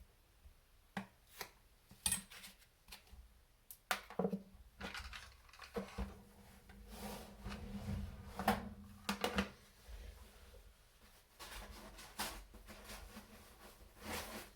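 Small kit parts being handled and set down on a workbench: irregular clicks, knocks and light clatter, thickest in the middle few seconds.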